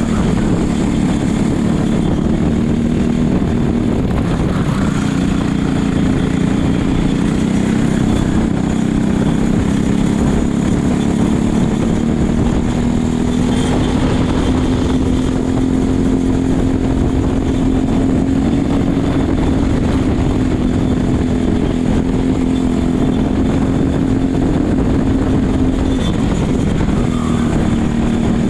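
Racing kart engine running hard at high revs on track, its note climbing gradually through the middle, dropping briefly near the end and climbing again, with steady wind rush on the helmet-mounted microphone.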